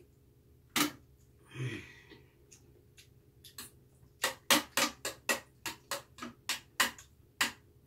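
A metal spoon clinks against a stainless-steel bowl as rice in water is stirred and scooped: about a dozen sharp clinks in quick succession in the second half. Earlier there is a single knock as a plastic water bottle is set down on the metal tray, followed by a short breath.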